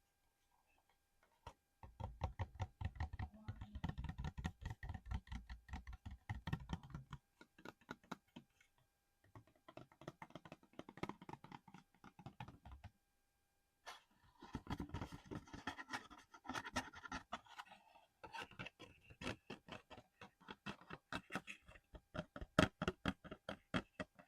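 Fingernails tapping and scratching quickly on a small hard object, in three runs of rapid sharp taps with short pauses between them.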